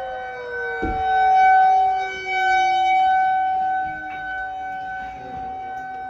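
Tornado warning siren sounding a steady wail that swells and fades in loudness, with a second, lower tone sliding slowly down in pitch. A dull thump about a second in.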